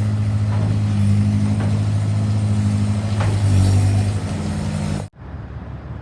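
An engine running steadily at idle, a low even hum, which cuts off abruptly about five seconds in.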